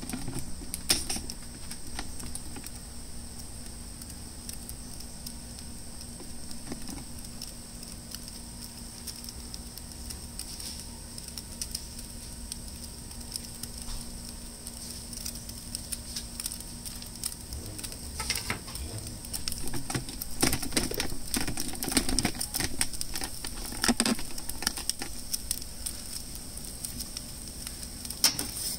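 Propane burner of a Solo Stove Pi Prime pizza oven running steadily with a high hiss while a pizza bakes, with scattered crackling ticks. A busier stretch of knocks and rustles comes about two-thirds of the way through.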